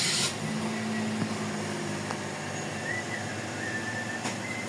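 Suzuki Celerio's engine catching and then idling steadily. The start noise ends a moment in.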